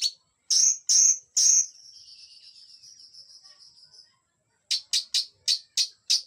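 A cungkok songbird singing: three loud high chirps, then a long faint buzzing trill for about two seconds that fades out. After a short pause comes a fast run of five or six sharp chirps near the end.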